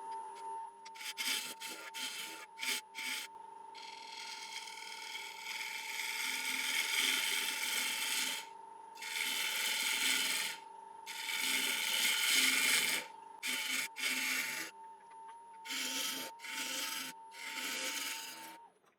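Bowl gouge cutting a spinning Iroko bowl blank on a wood lathe, in a series of hissing passes of a second to a few seconds with short pauses between them, over the lathe's steady whine.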